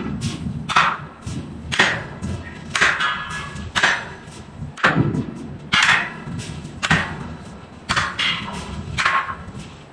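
Hydraulic forging hammer striking hot steel in a steady rhythm, about one blow a second, each blow with a short metallic ring, over a low machine rumble.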